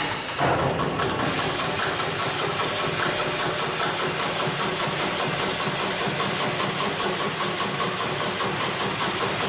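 Hightex 7273PLK automatic rope bar-tacking machine sewing a bar tack through two climbing ropes: a steady, fast run of needle strokes with a hiss over it, and a quick cluster of clicks in the first second.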